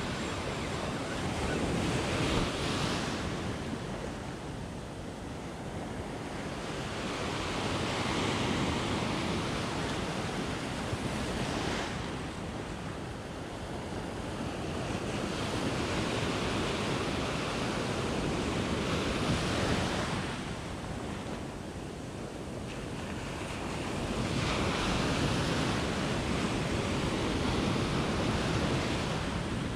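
Ocean surf breaking and washing up the sand in slow surges every several seconds, with wind buffeting the microphone.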